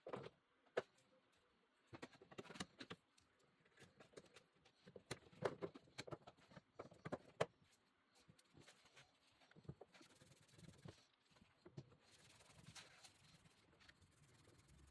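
Faint, irregular clicks and knocks of hands working the door hardware of a Ford Sport Trac: the newly fitted latch and handle parts being handled, with a few sharper clicks standing out.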